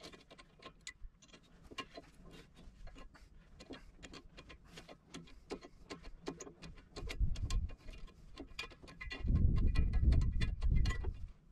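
Hand ratchet wrench clicking in short runs as bolts on a pumping unit's sheave hub are worked loose by hand. A low rumble comes in briefly about seven seconds in and again from about nine seconds in, louder than the clicks.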